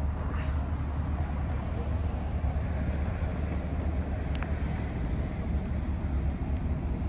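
2020 Chevrolet Corvette Stingray Z51's 6.2-litre LT2 V8 idling with a steady low hum. A single short click sounds about four seconds in.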